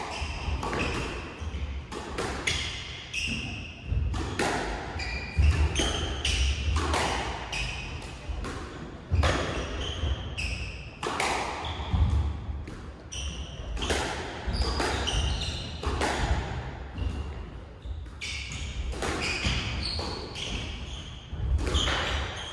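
A squash rally: the ball cracking off rackets and slapping the front and side walls in quick, irregular succession, with short high shoe squeaks on the wooden court floor and the echo of the enclosed court.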